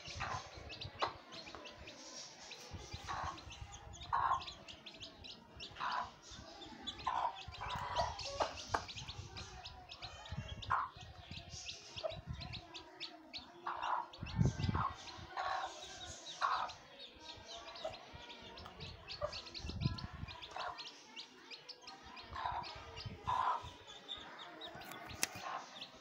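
Mother hen clucking in short calls about once a second while her young chicks peep continuously around her.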